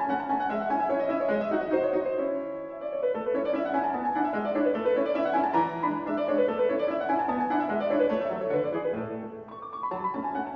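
Background solo piano music in a classical style, with quick flowing runs of notes rising and falling, easing off briefly about nine seconds in.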